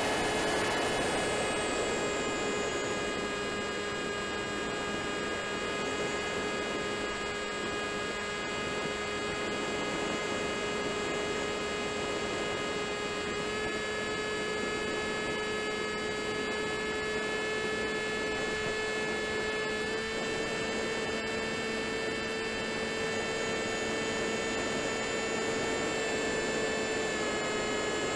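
Wing Wing Z-84 flying wing's electric motor and pusher propeller whining steadily in flight, picked up by the onboard camera, its pitch stepping slightly a few times as the throttle shifts.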